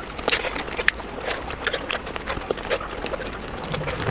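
Close-up wet chewing and lip-smacking of someone eating steamed momos (dumplings), heard as a string of irregular soft clicks.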